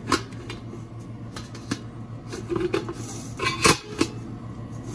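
Irregular metallic clinks and rattles from handling a jigsaw and its blade, with the loudest clatter near the end; the saw's motor is not running.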